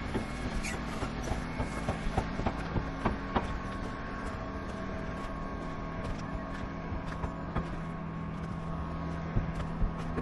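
A machine's engine running steadily, with scattered clicks and knocks over it.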